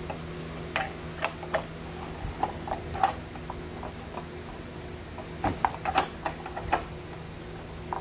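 Steel wrench clicking and clinking against a lawnmower's wheel nut as the nut is worked loose, in three irregular clusters of sharp metal clicks.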